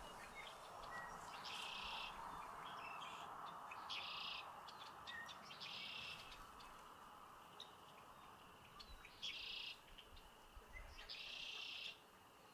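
A bird giving short, high, buzzy calls, five in all, roughly two seconds apart. Under them is a faint, steady hum of distant road traffic.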